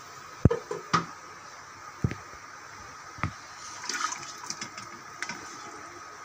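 A spoon knocks several times against a pressure cooker and stirs boiled mutton pieces in their broth, with liquid sloshing and splashing about four seconds in.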